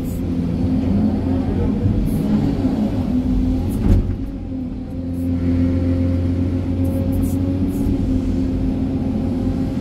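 SANY excavator's diesel engine and hydraulics running steadily under load, heard from inside the cab through a dig-and-load cycle. There is a sharp knock about four seconds in as the bucket digs into the rocky ground.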